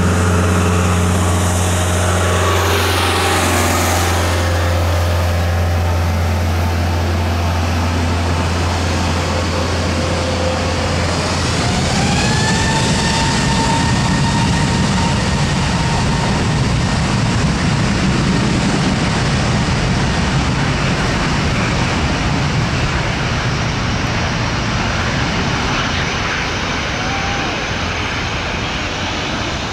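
Airbus A321neo's CFM LEAP-1A turbofan engines, first running at low thrust with a steady low hum, then about twelve seconds in spooling up with a rising whine into a loud, steady rumble at takeoff power as the aircraft begins its takeoff roll.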